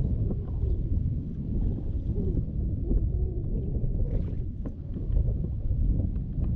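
Wind buffeting an open microphone, a steady low rumble, with a few faint clicks over it.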